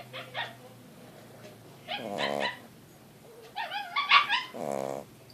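A sleeping pet snoring: low, buzzing snores about every two and a half seconds, with a louder, higher wavering sound just before the last snore.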